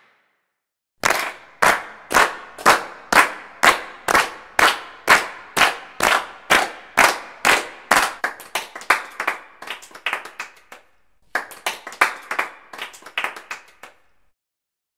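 A person clapping hands slowly and evenly, about two claps a second, each with a short room echo; the claps grow quicker and less even, pause briefly, then finish in a quick run of claps.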